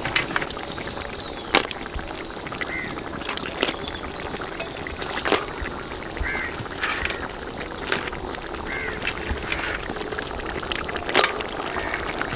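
Crab masala gravy simmering in a large kadai over an open fire: a steady hiss with occasional sharp pops. Several faint, short calls are heard in the background.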